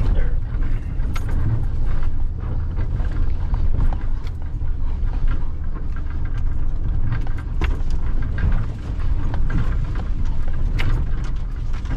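A vehicle driving over a rough gravel road, heard from inside the cab: a steady low rumble of engine and tyres, with scattered clicks and rattles from bumps in the road.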